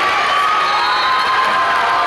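Crowd of spectators cheering and shouting, many voices overlapping at an even, loud level.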